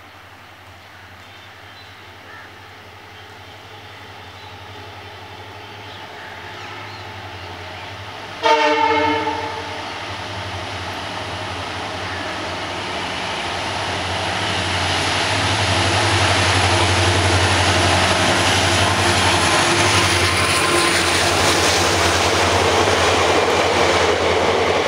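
WDG4 diesel locomotive (EMD GT46MAC, 16-cylinder two-stroke) approaching with a passenger train, its engine throb growing louder. It sounds its horn once, for about a second, around eight seconds in. The locomotive and coaches then rumble past on the rails, loudest over the last ten seconds.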